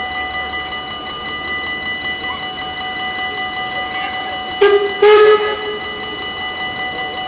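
Level-crossing warning bell ringing steadily. About four and a half seconds in, the approaching train sounds two short signal blasts, the second a little longer.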